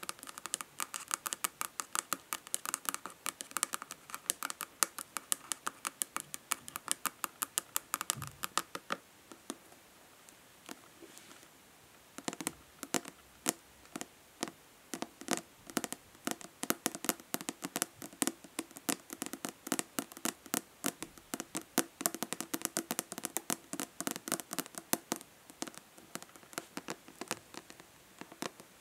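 Natural fingernails tapping fast on a plastic body lotion bottle, many quick clicks a second. The tapping thins out and softens for a few seconds about a third of the way in, then picks up again.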